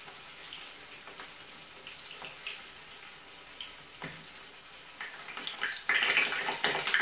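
Sesame-coated rice balls frying in shallow oil, a steady sizzle with faint crackles. A light knock sounds about four seconds in, and the sizzle grows louder near the end as hot oil is spooned over the balls.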